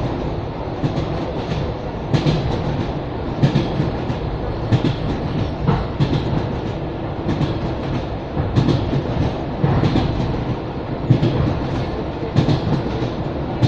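Wheels of an ED9M electric multiple-unit train knocking over rail joints, heard inside the passenger car: a steady rumble with pairs of clickety-clack knocks about every second and a quarter as the train runs at a steady speed.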